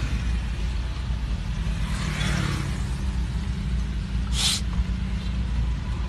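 Steady low rumble of a car engine running, with one short, sharp hiss about four and a half seconds in.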